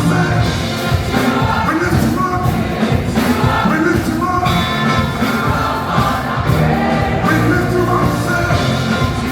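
Live gospel worship music: a band with singing voices and a choir, with a steady beat.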